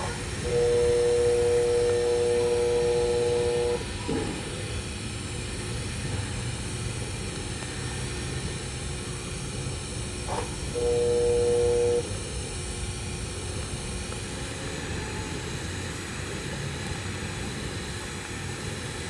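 TIG welding arc running steadily on a steel pipe cap pass, a continuous hiss. Twice a louder steady electric hum joins it: about half a second in for some three seconds, then again about ten seconds in for just over a second.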